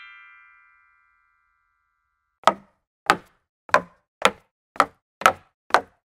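The last of a falling run of bright chime notes rings out and fades in the first second. After a short silence, sharp knocks start, about two a second, seven in all.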